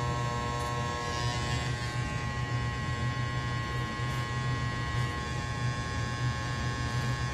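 Corded electric hair clippers running with a steady buzz.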